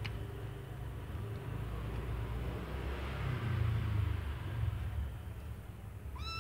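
Low steady background rumble that swells about halfway through. A kitten starts a single meow right at the end.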